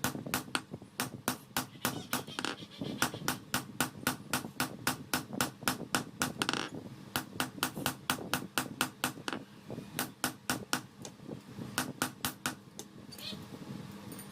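Hammer blows on steel being forged, about four strikes a second in runs broken by short pauses, over a steady low hum.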